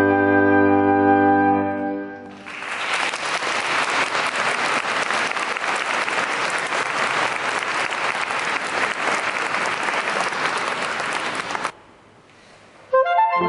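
A saxophone quartet, baritone down to soprano, holds a final chord for about two seconds. Audience applause follows and cuts off suddenly near the end. The quartet starts playing again just before the end.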